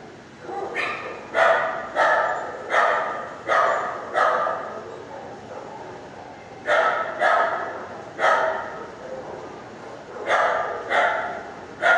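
Shelter dogs barking in a kennel: about a dozen sharp barks in three bouts, each bark echoing briefly off the hard kennel walls.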